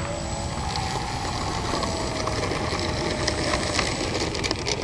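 Small electric RC plane's motor and propeller whining in flight, the pitch rising a little and then sliding slowly down over a few seconds, over a steady low rumble of wind on the microphone.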